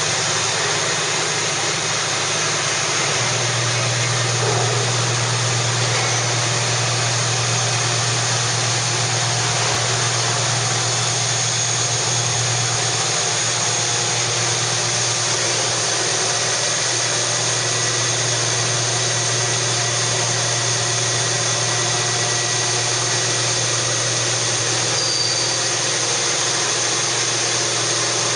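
Steady industrial machinery running: a constant hiss over a low electric hum, the hum growing stronger about three seconds in and then holding.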